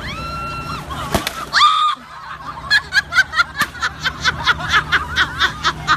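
Whooping cries with a sharp knock about a second in, then a long run of loud laughter in quick, even bursts, about three or four a second.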